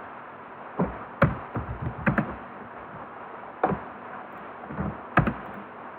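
Scattered sharp clicks and taps from a computer keyboard and mouse, about eight at irregular intervals, over a faint steady background hum.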